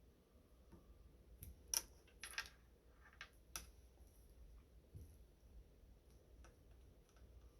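Faint scattered clicks and a brief scratchy rustle of fingers and nails handling nail polish strips, the sharpest click a little under two seconds in.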